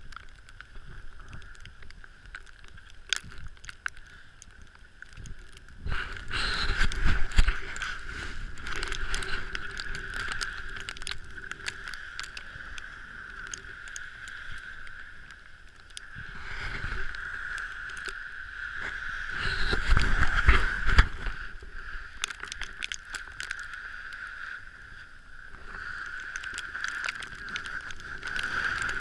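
Muffled rushing of wind and a moving vehicle, heard through a GoPro HERO3's waterproof housing. The noise swells twice, around six seconds in and again around twenty seconds in.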